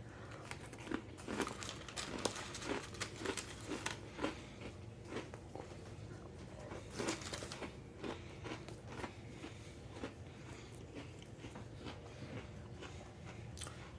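An Oreo cookie being bitten and chewed: many small crunches and clicks, with a louder crunch about seven seconds in.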